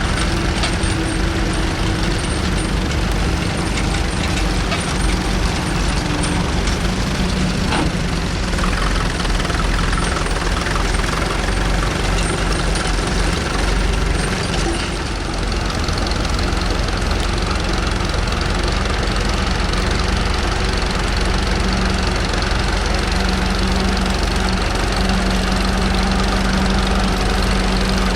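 Vintage tractor engines running steadily at idle, a continuous low drone with a hum that grows stronger about halfway through.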